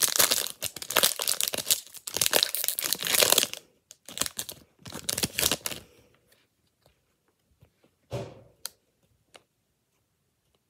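Foil wrapper of a trading-card pack being torn open and crinkled: dense crackling and tearing for about three and a half seconds, then a few more crinkles up to about six seconds in. After that it goes mostly quiet, with a few faint clicks and one short rustle as the cards are handled.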